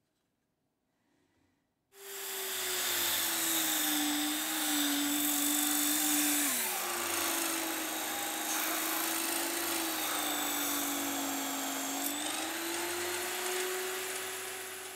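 Drill-driven homemade plywood disc sander starting up about two seconds in and running, the electric drill motor's whine over the hiss of sandpaper on plywood. The whine sags in pitch twice as the wood is pressed against the spinning disc.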